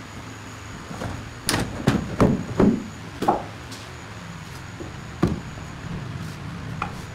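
Wooden drawer on metal telescopic drawer slides being pulled out and pushed back in by hand, with a quick run of sharp knocks about a second and a half in, another just after three seconds and one more past five seconds.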